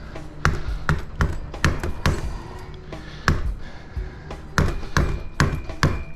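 Hammer blows on a punch against the parts of a large electric motor being torn down for scrap: more than a dozen sharp metallic strikes at an uneven pace.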